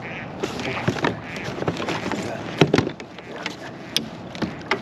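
Scattered knocks and clatter on a plastic fishing kayak, with gear being handled while a hooked bass is landed beside the boat.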